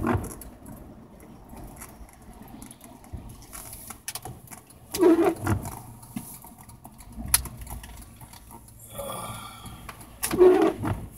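Car windshield wipers sweeping the wet glass about every five seconds, each pass a short rubbing squeak with a thump, over low road and engine noise inside the car.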